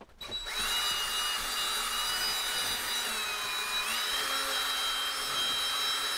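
Cordless drill spinning a cut-off toilet-brush head against a soapy chrome shower valve plate: a steady high motor whine over the rush of bristles scrubbing. It starts about half a second in, and the whine sags a little around three seconds, then steps back up about a second later.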